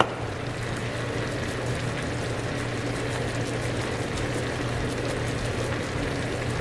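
Sliced sweet potatoes with butter and brown sugar sizzling steadily in a frying pan on a gas stove, with faint fine crackles and a low steady hum underneath.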